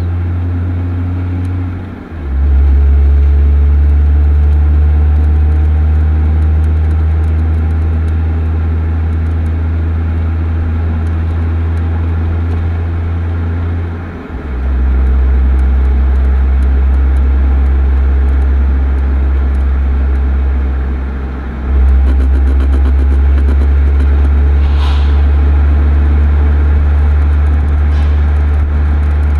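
Stock exhaust of a Toyota Supra 2.5GT's 2.5-litre straight-six, a low, steady drone at low revs under light throttle. It briefly drops away and comes back about 2, 14 and 22 seconds in as gears are changed at 1500–1900 rpm.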